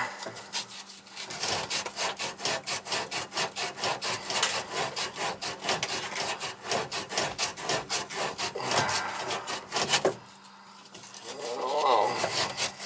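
Plumber's emery cloth rubbed quickly back and forth around a copper pipe, scouring the pipe bright so it can be soldered. The rapid strokes stop about ten seconds in, then a softer rubbing follows near the end.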